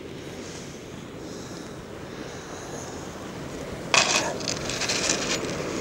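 Steady wind and surf noise on a shingle beach. About four seconds in comes a second or so of clattering handling noise as the sea-fishing rod's rig and reel are handled near the pebbles.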